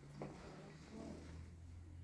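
Faint room tone: a low steady hum, with one small click shortly after the start.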